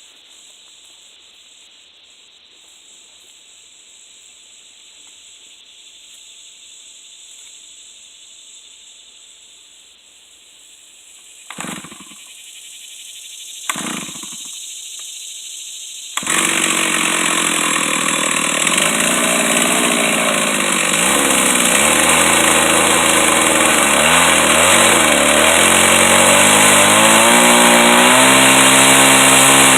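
Stihl 038 two-stroke chainsaw being started: two short bursts from the engine about 12 and 14 seconds in, then it catches about 16 seconds in and runs loud and fast to the end, its pitch wavering.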